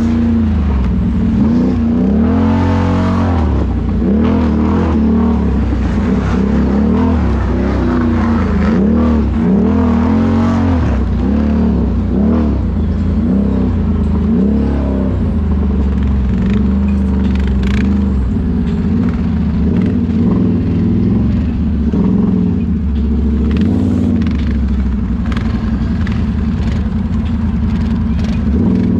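Can-Am ATV engine revving up and down repeatedly under throttle, then running at a steadier speed for the second half.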